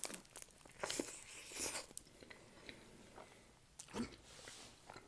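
Close-miked eating of a shawarma: biting into the wrap and chewing it with wet mouth sounds. The loudest stretch comes about a second in, with another short bite about four seconds in.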